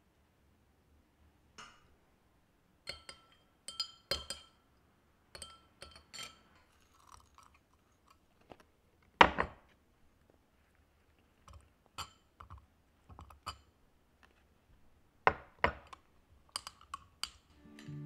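Tableware being handled: metal tongs and a spoon clicking and clinking against a glass and plates, a few of the clinks briefly ringing. One louder knock comes about nine seconds in, and a quick run of clinks near the end.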